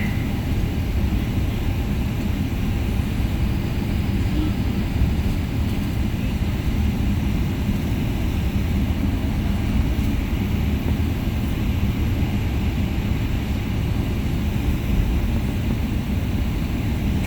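Steady low rumble of a jet airliner heard from inside the cabin as it taxis after landing.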